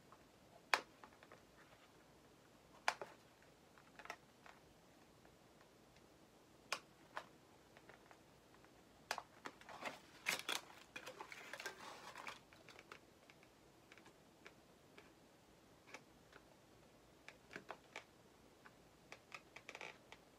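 Scattered sharp clicks and light crinkling of plastic doll packaging and accessories being handled, with a short burst of rustling about ten seconds in.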